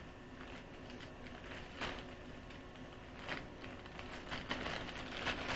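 Quiet kitchen handling noises: scattered light clicks and taps, more frequent in the second half, over a faint steady hum.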